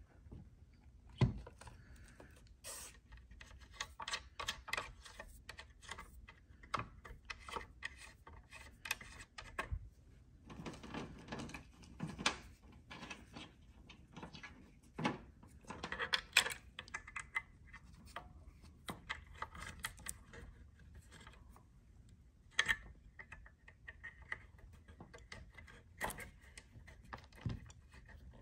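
Irregular clicks, knocks and rustling from equipment being handled, with a sharp knock about a second in and another near the middle.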